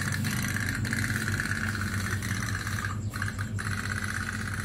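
Otok-otok (pop-pop) toy boat running, its candle-heated tin boiler giving a steady, rapid putt-putt.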